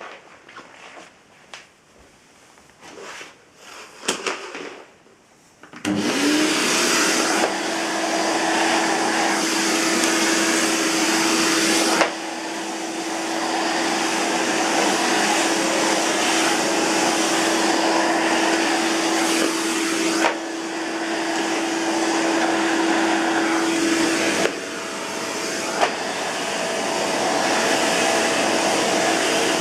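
Electrolux Euroclean UZ930 vacuum cleaner with a 1000 W motor. A few handling clicks and knocks come first, then about six seconds in the motor switches on and spins up to a steady whine over rushing air. The sound shifts abruptly a few times, and near the end the whine settles at a higher pitch.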